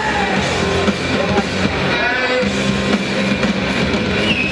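Rock music playing, dense and continuous.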